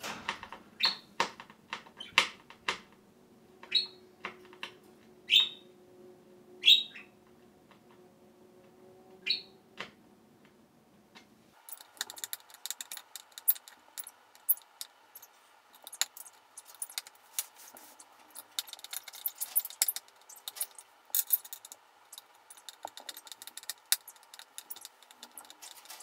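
Screws being driven by hand into a cage-stand base board with a screwdriver: a run of small metallic clicks and ticks, thick and rapid in the second half. Six or so short, sharp high chirps stand out in the first half.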